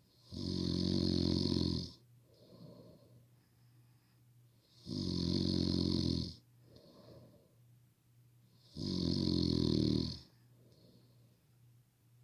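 A sleeping person snoring loudly: three long snores about four seconds apart, each followed by a softer breath out.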